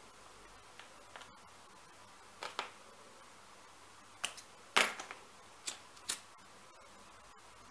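Hand-stitching leather: a scattering of short, sharp clicks and scrapes as needles and thread are worked through the stitching holes, several coming in quick pairs, the loudest a little under five seconds in.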